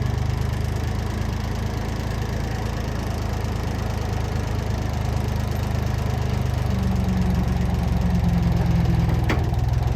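Engine of a front-end loader running steadily as it lifts with its bucket, a higher tone joining and the engine working a little harder about seven seconds in, with a single click near the end.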